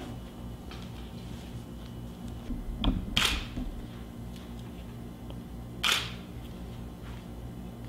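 A camera shutter firing twice, about three seconds apart, over a low steady hum.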